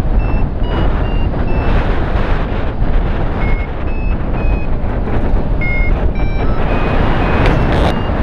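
Hard rushing wind noise on the microphone in flight, with a hang-glider variometer's short beeps repeating about two a second and changing pitch from beep to beep. The beeping is the vario signalling that the glider is climbing.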